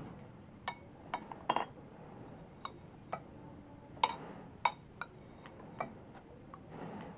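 Light, scattered clinks of a utensil against a glass or ceramic bowl, about a dozen irregular taps.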